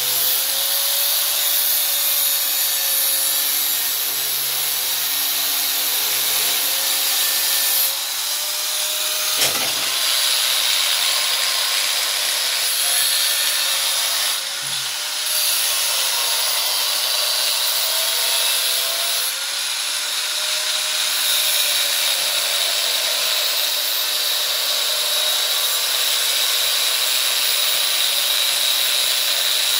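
Electric angle grinder with a thin cutting disc running and cutting through steel rod and bolts, a steady whine over a grinding hiss. Its pitch sags and recovers again and again as the disc bites into the metal, with one sharp knock about nine and a half seconds in.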